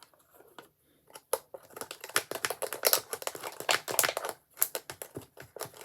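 Packaging crinkling in a dense run of small crackles, starting about a second in.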